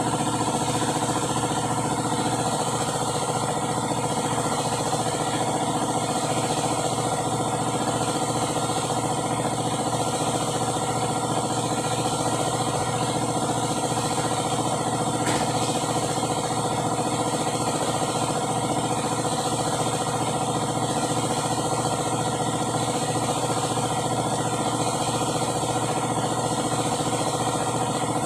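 An engine idling steadily, an even hum that does not change in pitch or level.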